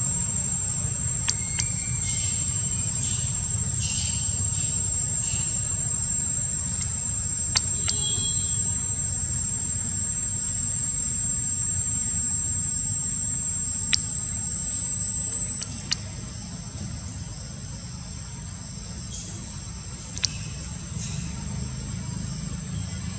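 Steady, high-pitched insect drone over a low rumble, with a few faint short calls and sharp clicks; the drone and rumble drop in level about two thirds of the way through.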